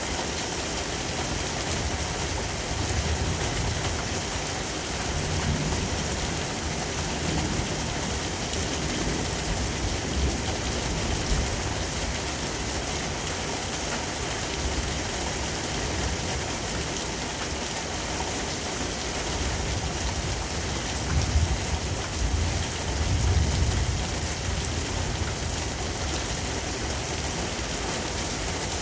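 Heavy thunderstorm rain falling steadily, with a few low rumbling swells, the loudest about three-quarters of the way through.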